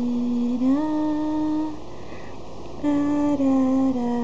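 A slow hummed melody in long, steady held notes, in two phrases with a break of about a second in the middle.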